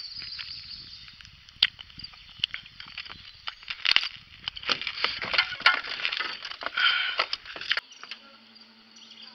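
Crackly rustling and sharp clicks close to the microphone, as of hands handling fishing line and gear. About eight seconds in, a low steady motor hum starts as another boat comes near.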